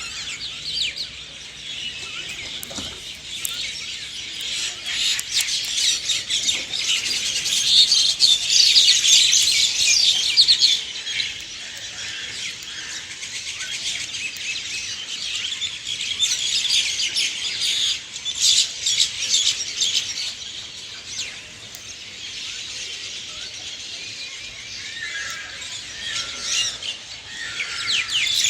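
Many songbirds chirping and trilling at once in a dawn chorus, a dense overlapping mix of short high notes that swells busier and louder at times.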